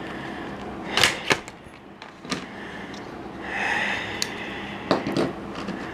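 Retail packaging being cut open with a knife and handled: several sharp clicks and snaps, with a short stretch of rustling about halfway through.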